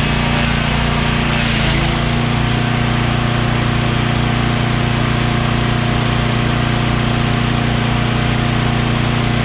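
Small gasoline engine of a rebuilt chipper-shredder running steadily under throttle during a test run, its pitch dropping slightly about a second and a half in and then holding steady.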